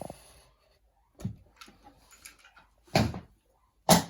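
A few short knocks and scrapes of hand tools being handled against a wooden door, with two louder sharp knocks near the end.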